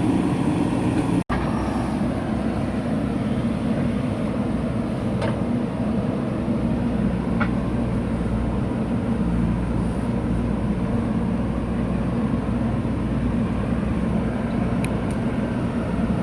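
JCB 3DX backhoe loader's diesel engine running steadily, with a few faint sharp clicks. The sound drops out for an instant about a second in.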